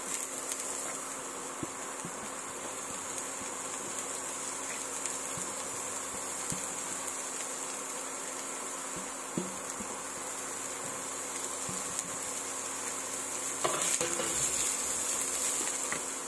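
Chopped long beans and carrot sizzling in hot oil in a steel pan, a steady hiss, with occasional light scrapes and taps of a wooden spatula stirring them. The stirring grows louder for a couple of seconds near the end.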